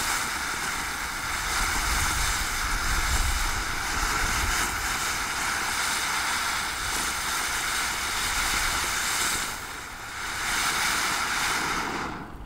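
Firework fountain hissing steadily as it sprays sparks, dipping briefly about ten seconds in, then picking up again before cutting off near the end as it burns out.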